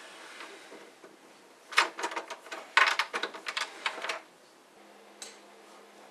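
Door handle and latch rattling: a clatter of quick sharp clicks and knocks, a short burst about two seconds in and a longer run from about three to four seconds, then one last faint click.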